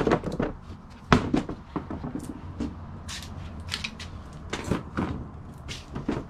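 Wooden dartboard cabinet doors swung shut with a sharp knock, then another loud knock about a second in, followed by scattered lighter knocks, clicks and rustling of things being handled.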